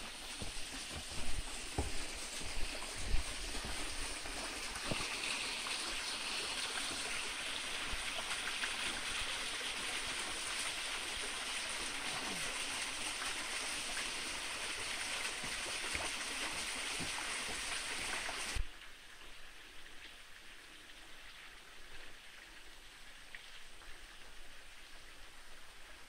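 Small mountain stream cascading over rocks: a steady rush of water that stops suddenly about two-thirds of the way through, leaving a much quieter forest background. Footsteps knock on the trail steps in the first few seconds.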